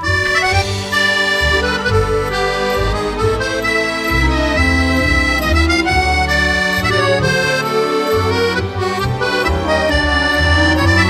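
Background music: a sustained melody and chords over a bass line that changes about once a second.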